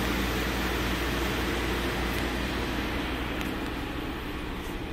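2015 Kia Cadenza's 3.3-litre V6 running at a steady fast idle with the engine still cold, growing slightly quieter toward the end.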